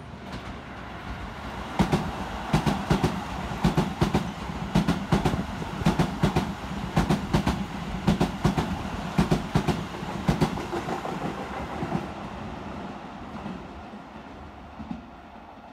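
Electric commuter train passing close by on a Keisei line, its wheels clacking over the rails in quick pairs for about nine seconds. The sound then dies away as the cars clear.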